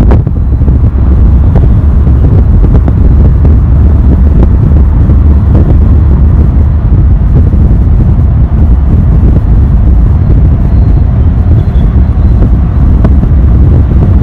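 Loud, steady low rumble of road and wind noise from a moving vehicle, with wind buffeting the microphone.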